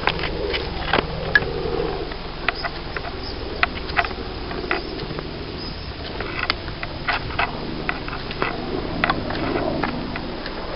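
Handling noise of a camera carried while walking: rustling with irregular clicks and knocks over a steady low hum.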